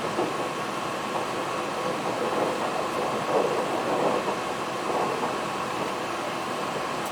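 KiHa 261 series 5000 diesel express railcar under way, heard from aboard: a steady running rumble of wheels and engine with a faint constant whine, and light clicks and rattles that swell a little in the middle.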